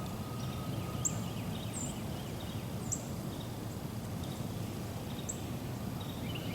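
Outdoor woodland ambience: a steady low rumble of background noise with several short, high-pitched bird chirps scattered through it.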